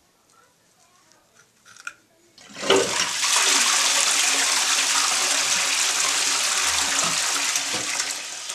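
Ifö Cera toilet flushing: a sudden rush of water starts about two and a half seconds in and runs steadily, easing slightly near the end.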